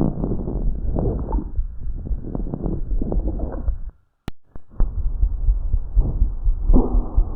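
Lung sounds heard through a stethoscope: breaths swelling and fading about once a second, with many short crackling clicks running through them. About four seconds in the sound cuts out briefly and a second chest recording begins.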